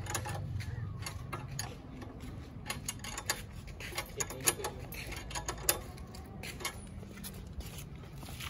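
Irregular metallic clicks and clinks of a hex key and an open-end wrench on the bolts of a steel side rack as it is tightened onto a Honda Super Cub C125, with a few sharper clicks midway, over a steady low hum.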